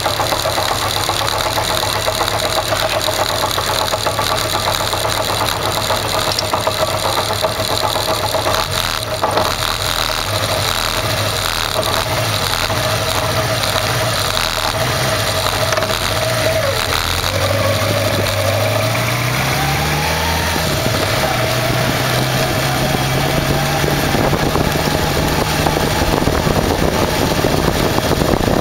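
Kawasaki Zephyr 550's air-cooled inline-four engine running as the motorcycle is ridden, under a steady rush of noise. A little over halfway through, the engine pitch climbs as the bike speeds up, then holds steady at the higher pitch.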